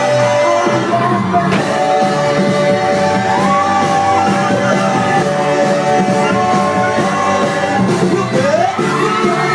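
Loud pop music played through a PA, with a crowd shouting and cheering over it.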